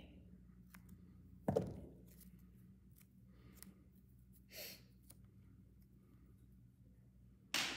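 Craft materials being handled on a tabletop: scissors, a paper frame and a strip of foam tape. A sharp knock about a second and a half in, a short rustle midway, and another sharp knock near the end, over a faint low hum.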